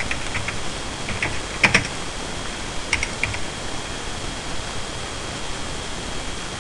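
Computer keyboard keystrokes in a few short bursts of typing during the first half, then only a steady background hiss.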